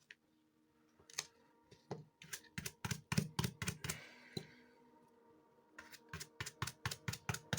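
Rapid series of light clicks and taps from hand tools working a sneaker insole, about three to four a second, pausing briefly midway and then resuming.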